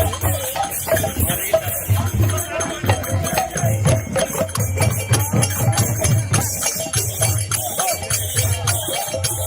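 Kirtan percussion: jhanjh hand cymbals clashing continuously over steady, repeated strokes of mridang drums, with chanting voices woven through.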